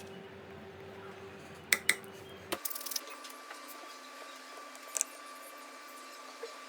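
A few small, sharp metallic clicks and taps from tiny screws and small hand tools being handled on an opened iPhone during a battery replacement, with two clicks close together about two seconds in and scattered lighter ones after, over a faint steady hum.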